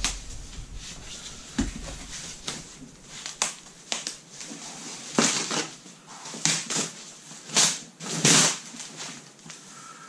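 Thin plastic packaging wrap rustling and crinkling in bursts as a hard organiser shelf is pulled out of it and unwrapped. The loudest crinkles come in the second half.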